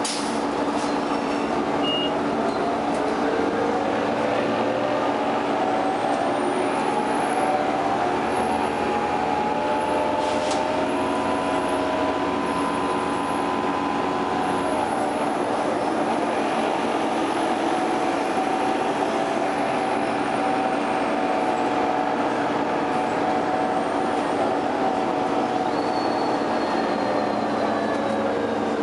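Interior drone of a 2002 Orion V bus's Detroit Diesel Series 50 engine and Voith DIWA 864.3 automatic transmission under way. The whine climbs in pitch for several seconds and levels off, then drops to a lower pitch about halfway through at an upshift. It holds there and falls away near the end as the bus slows, over a steady hum.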